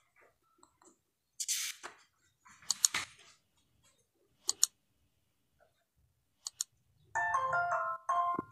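Computer mouse-click sound effects: a short swish, then sharp clicks mostly in pairs, followed near the end by a brief electronic chime of several stepped notes.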